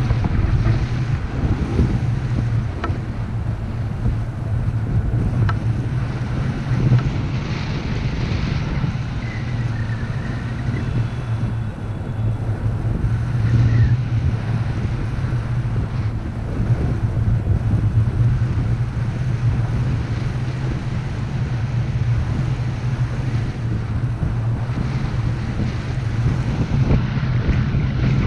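Steady wind rushing and buffeting over a camera microphone in a tandem paraglider's flight, a low rumble that rises and falls with the gusts.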